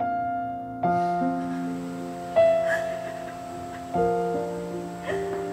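Slow background piano music: sustained chords struck about once every second and a half, each left to ring and fade.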